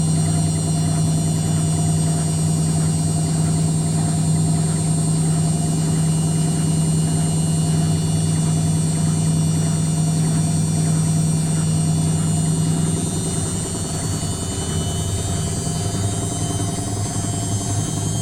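Indesit WITL 106 top-loading washing machine spinning: a steady motor hum with a rhythmic knock from the drum on each turn, the fault the owner is showing. The hum drops in pitch and level about 13 seconds in as the spin speed changes.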